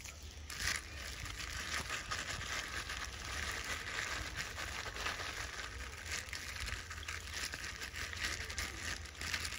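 Plastic snack wrapper crinkling in a macaque's hands: a run of small, irregular crackles.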